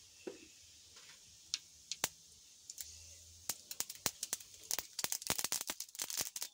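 Mustard seeds popping and spluttering in hot groundnut oil for a tempering. A few scattered pops at first, building to rapid crackling over the last few seconds, over a faint sizzle.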